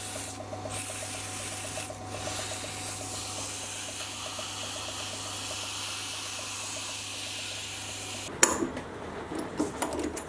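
Mini lathe motor running with a low hum while abrasive paper is held against the spinning steel Morse taper 2 shank, making a steady rubbing hiss as the freshly turned taper is polished. Both stop about eight seconds in, followed by a few clicks and knocks.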